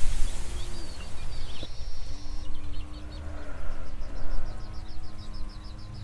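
Birds chirping in quick, evenly spaced series over a low wind rumble on the microphone, with a faint low steady hum underneath.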